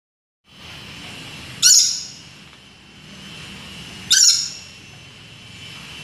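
Caged red lory giving two short, harsh screeches about two and a half seconds apart, over a steady background hiss.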